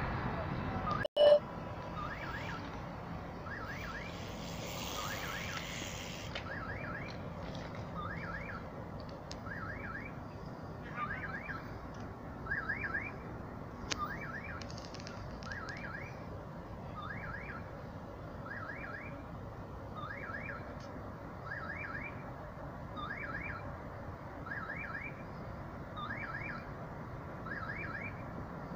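Railroad level-crossing warning signal sounding a short rising electronic chirp about once a second. A single sharp pop about a second in is the loudest sound.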